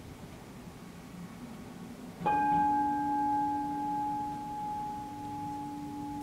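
Metal singing bowl struck once with a wooden mallet a little over two seconds in, then ringing on with a low hum and a brighter steady tone that slowly waver and fade.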